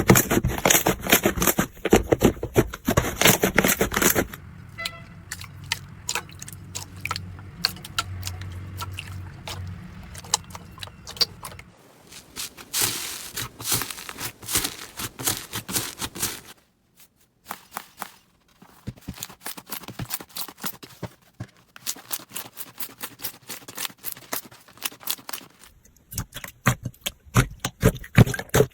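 Slime being squeezed and pressed by hand: a dense run of sticky crackling clicks and pops. It runs across several short clips, and the texture changes abruptly a few times.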